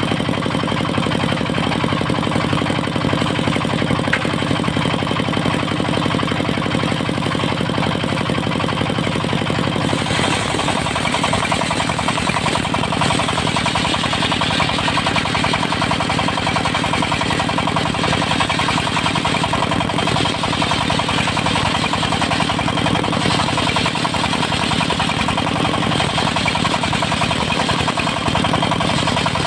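Diesel engine driving a mobile circular sawmill, running steadily. About ten seconds in the sound shifts, with more hiss higher up and a change in the engine's low tone.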